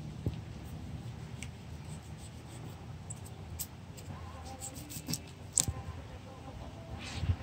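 Fillet knife cutting through a tilapia's scales and skin: a run of crisp, scratchy crackles and clicks, the sharpest about two-thirds of the way through, over a low steady background rumble.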